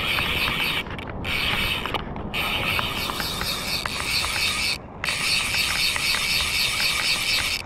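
Speyco fly reel's ratchet clicking rapidly as line runs on the spool while a hooked American shad is played, with a few brief pauses.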